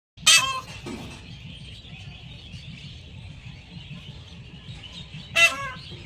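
Indian peahen calling: two short, loud calls, one at the start and another about five seconds in, with a steady faint high hiss between them.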